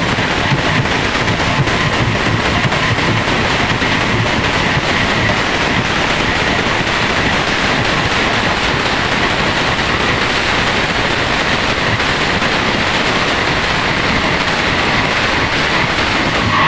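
Many large brass hand cymbals of a Nagara Naam group clashed together without pause, blending into one loud, continuous shimmering wash.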